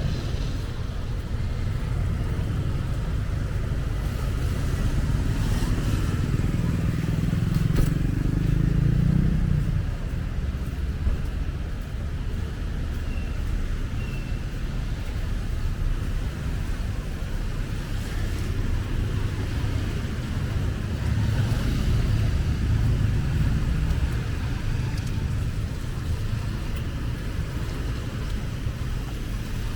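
Street traffic: a steady low rumble of passing cars and motorbikes, swelling as a vehicle goes by about a quarter of the way in and again past the middle.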